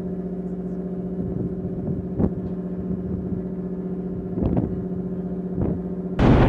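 Steady hum of a navy amphibious ship's machinery, one low drone with many even overtones, with a few soft clicks along the way.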